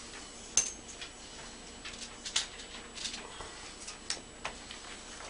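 Scattered small clicks and taps, about half a dozen at uneven intervals, as hard small objects are handled on a work surface; the sharpest click comes about half a second in.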